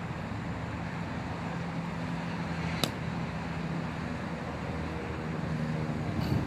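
Steady hum and rumble of road traffic, with one sharp click about three seconds in.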